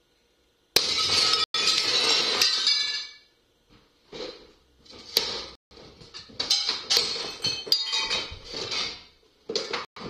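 Window glass being smashed: a sudden burst of shattering and tinkling about a second in that lasts a couple of seconds, followed by scattered clinks and clatters of glass and the window frame.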